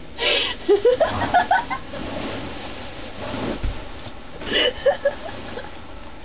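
A girl giggling in two short bouts, each starting with a burst of breath and running into quick, high-pitched laughs.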